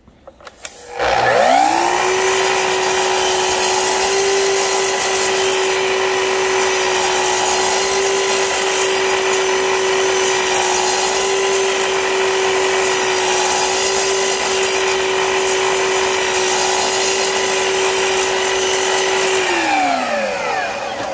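Festool Kapex KS 120 EB sliding mitre saw spinning up about a second in with a rising whine, running steadily while its blade cuts a shallow groove into a wooden block, set to a reduced depth rather than a through-cut. The motor winds down near the end.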